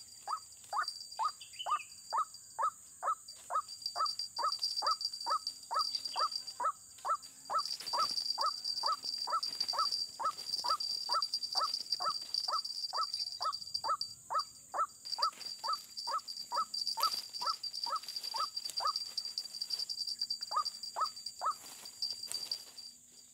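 White-breasted waterhen call played as a lure: one short falling 'kwak' note repeated steadily about twice a second, which breaks off near the end and comes back as three more notes. A steady high insect drone goes on behind.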